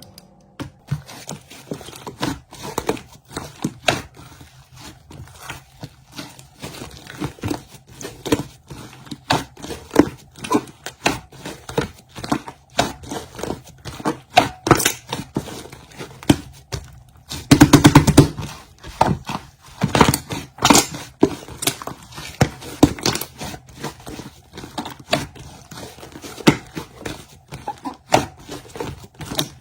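Slime being squeezed, stretched and pressed by hand, giving dense, irregular sticky clicks and small pops, with one louder squelch about two-thirds of the way through.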